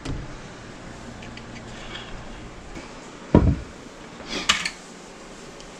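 A door thudding shut, followed about a second later by a couple of sharp clicks.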